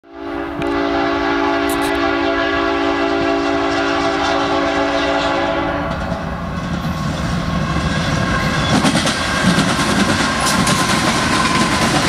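BNSF diesel freight locomotive's air horn sounding one steady multi-note chord for about five seconds. It then stops, and the lead locomotives pass with an engine rumble. The grain train's covered hopper cars follow, rolling by with a clickety-clack of wheels over the rail joints.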